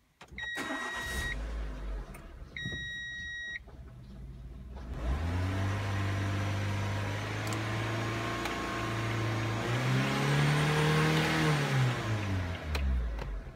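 A Renault Scenic II's 1.4-litre K4J four-cylinder petrol engine. Two short dashboard warning beeps come first. About five seconds in the engine starts and idles steadily, revs up once with a rising pitch, drops back, and cuts off near the end.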